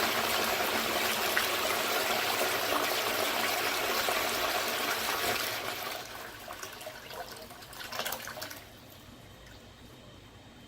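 VitrA Rim-ex rimless toilet flushing: water rushes through the bowl steadily for about five seconds, then the flow dies away, with a last gurgle and trickle about eight seconds in, and only a faint hiss of the cistern refilling near the end.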